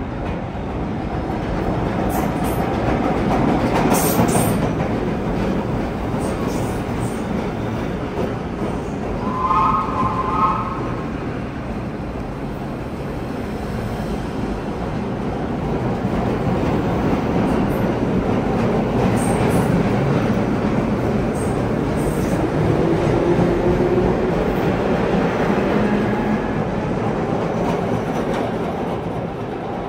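Vintage R1–R9 series New York subway cars running through an underground station: a steady rumble of wheels on rail with clatter and some squeal, and a short horn blast about ten seconds in.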